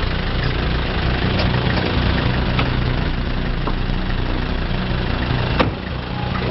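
Black taxi cab's diesel engine idling steadily. A single sharp clunk about five and a half seconds in as the cab door is shut.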